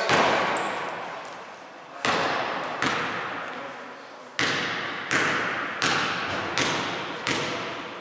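Basketball bouncing on a hardwood gym floor as a player dribbles at the free-throw line. About eight bounces come at uneven intervals, each a sharp thud that echoes through the large hall.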